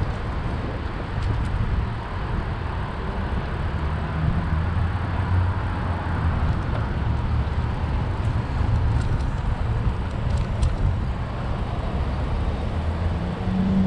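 Steady city street traffic noise heard from a moving bicycle, with a low rumble and a few faint clicks.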